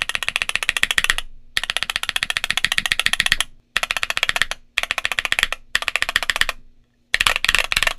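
Mechanical keyboard with MMD Princess tactile switches being typed on fast: rapid runs of sharp keystroke clacks, broken by short pauses several times.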